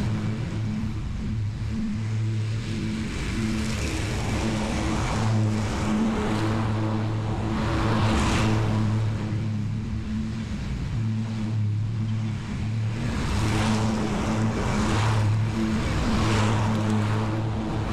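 Lawn mower engine running steadily while cutting grass, a constant low hum with a hiss that swells and fades every second or two.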